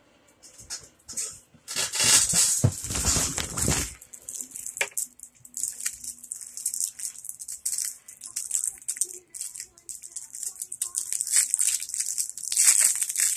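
Plastic bag of Brach's JellyBean Nougats crinkling as it is handled. The crackling comes in irregular bursts, loudest for a couple of seconds near the start and again near the end, with quieter crackles between.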